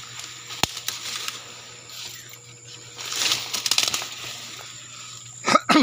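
Leaves, grass and dry twigs rustling and crackling as someone pushes through dense undergrowth on foot. There is a sharp click about half a second in, and near the end a short sound that falls in pitch.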